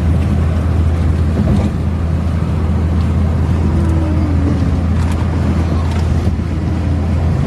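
Suzuki Karimun Kotak driving at cruising speed on a toll road: a steady low drone of engine and tyre noise.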